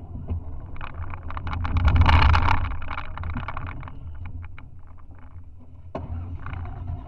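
Off-road car's engine running under way, heard from inside the roll-caged cabin, with clattering and knocks from the car bouncing over rough ground. The sound swells loudest about two seconds in, eases off, and a sharp knock comes near the end.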